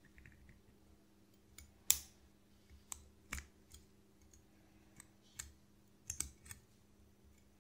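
Steel tweezers clicking and tapping against the metal of a Seiko 7S36 automatic movement and watch case: scattered sharp clicks, the loudest about two seconds in, with a quick cluster near the end, over a faint steady hum.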